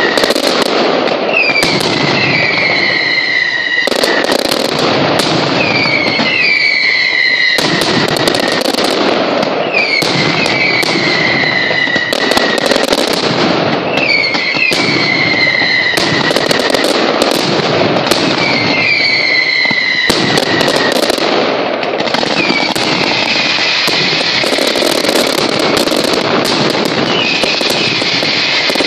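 Mascletà: a dense, loud, continuous barrage of firecracker detonations, with whistling fireworks sounding a short falling whistle about every two seconds.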